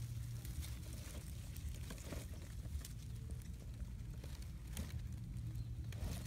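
Faint, scattered crackling of dry leaves over a steady low rumble.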